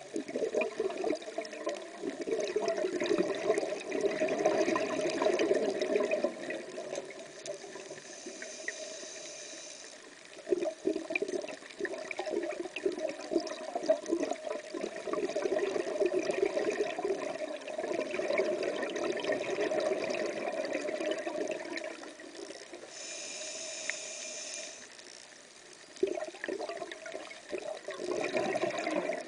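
Scuba diver breathing through a regulator, heard underwater: long spells of bubbling exhaled air, broken twice by quieter spells with a thin hiss of inhalation.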